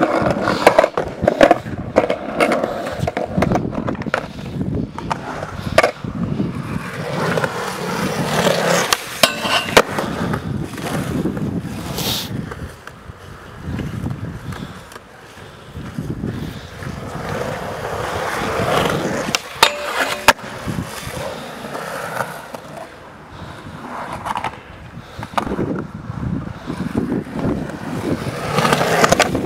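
Skateboard wheels rolling over a concrete skatepark close to the microphone, with scattered sharp clacks and knocks from the board.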